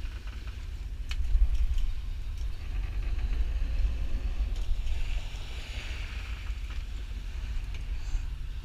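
Wind buffeting the microphone in a low rumble over the steady drone of a sport-fishing boat's engine, with water hissing past the hull, a little louder through the middle.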